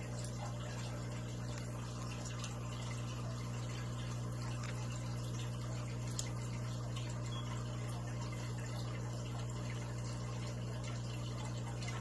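Aquarium equipment running: a pump's steady low hum with water trickling and bubbling over it.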